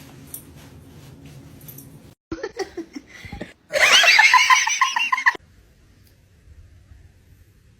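A person laughing hard in a rapid, high-pitched run lasting under two seconds, about halfway through, just after a few shorter voiced sounds.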